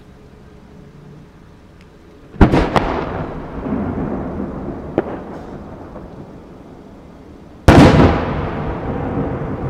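Fireworks going off: a loud double crack about two seconds in, a small crack a few seconds later, and a second loud bang near the end, each big bang trailing off in a long rumbling echo.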